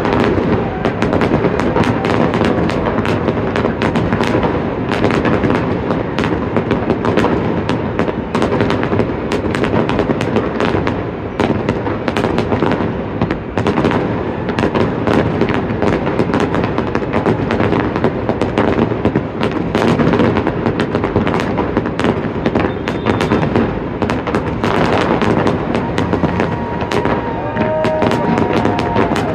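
A dense, continuous barrage of aerial firework bursts, many bangs a second, rumbling and cracking without a pause.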